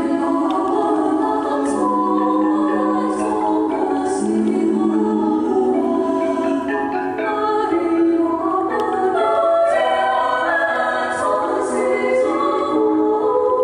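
Choral music: voices singing long, held chords over an instrumental backing, the notes shifting every second or so.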